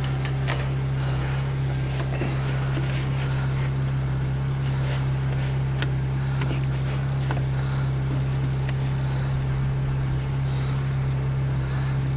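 Portable generator running steadily at high idle, an even, unchanging hum. Faint scattered ticks and clicks of handling sound over it.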